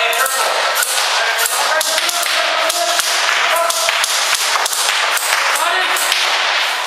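Airsoft guns firing in a dense, irregular run of sharp cracks and snaps, with voices underneath, in a concrete parking garage.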